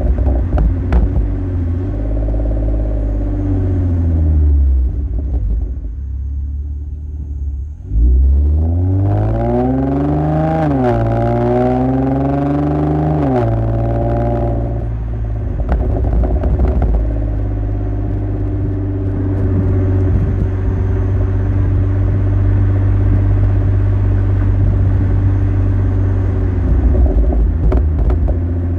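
Hyundai Genesis Coupe 3.8 V6 running through a custom exhaust with long-tube headers and a homemade square muffler, a note the owner likens to a boxer engine. About eight seconds in the revs rise sharply, dip briefly at a gear change, climb again, then drop off and settle to a steady cruise.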